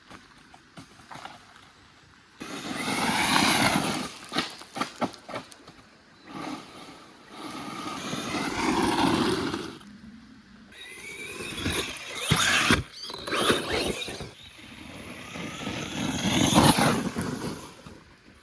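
Brushless electric RC truggy driven in about four bursts of throttle, its motor whine rising in pitch with each burst, with tyres spinning on loose ground that gives little grip.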